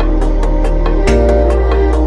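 Electronic background music with a steady beat over sustained bass and chords; the bass note shifts about a second in.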